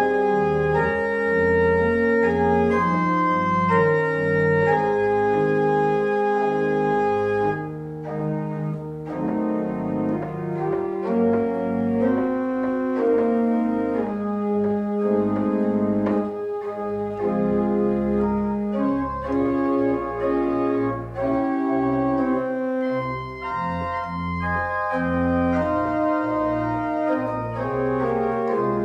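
Pipe organ playing slow, sustained chords that change every second or two. About eight seconds in it drops to a softer, quieter sound with less brightness, then carries on.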